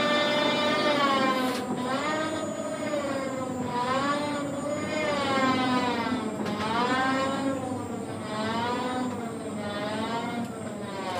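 Tower crane drive motor whining, its pitch dipping and rising again every second or two as the crane works.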